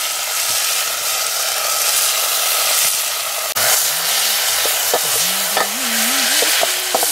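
Sliced bamboo shoots sizzling steadily in a metal pot over a wood fire, stirred with a steel ladle.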